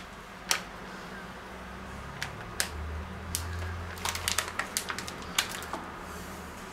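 Paper packet of semolina crinkling and crackling as it is handled and poured out onto a wooden cutting board. Scattered sharp crackles come thickest from about four to five and a half seconds in.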